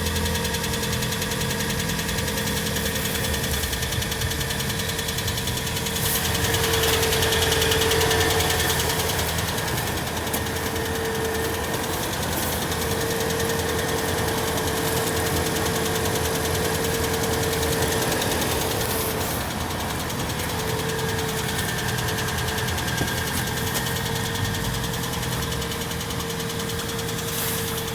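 Kia Sportage engine idling cold with a steady knock, the cold-engine knock that goes away after a couple of minutes of warming up. A steady whine runs along with it, and the engine is briefly louder about seven seconds in.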